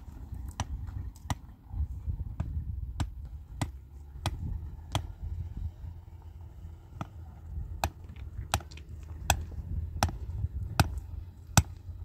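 A steady series of sharp hand-tool blows, about one every two-thirds of a second, with a short pause about halfway through, over a low steady background noise.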